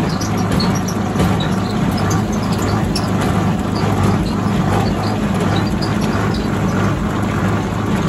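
Tractor engine running steadily at working speed, driving a Massey Ferguson 1840 small square baler through its PTO shaft while it bales straw: a continuous low drone with light scattered clicking from the baler.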